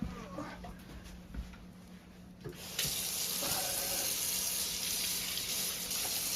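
Kitchen faucet turned on about two and a half seconds in, water running steadily into a quartz sink.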